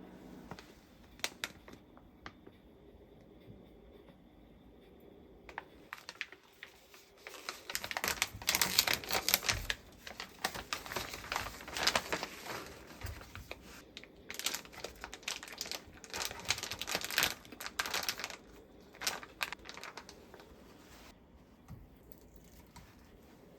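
Plastic packaging crinkling and tearing as it is handled, in dense crackly bursts that start about a quarter of the way in and die down near the end, after a few scattered clicks.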